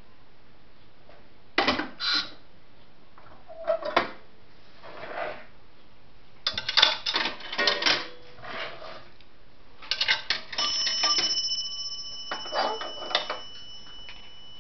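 Vintage Automatic Electric pay phone being handled: bursts of metallic clicks and clatter, then a bell tone rings on steadily from about ten seconds in.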